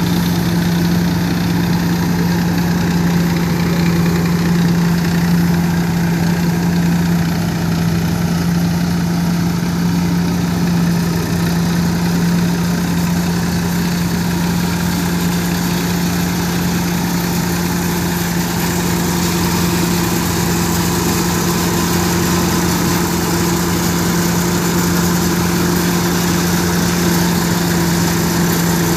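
Massey Ferguson tractor's diesel engine running at a steady speed, driving a Gautam threshing machine, with the thresher's working parts whirring along; a steady, even drone.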